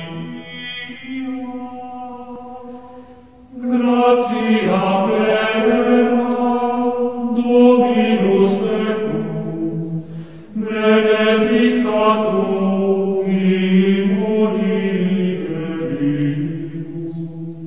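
Liturgical plainchant sung in long, slowly moving phrases, with short breaks about three seconds in and again around ten seconds in.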